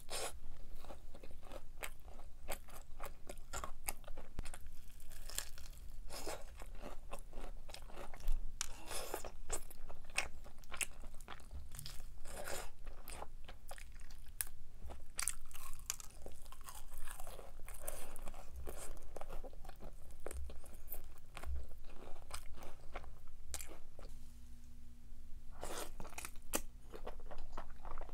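A person biting and chewing crunchy food close to the microphone: a steady run of irregular crisp crunches, easing briefly near the end.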